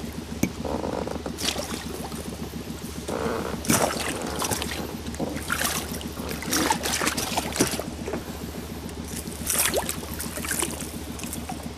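Water splashing and sloshing at the side of an inflatable PVC boat as a small, lively lenok is played on the line and reached for by hand, in scattered short splashes over a steady low hum.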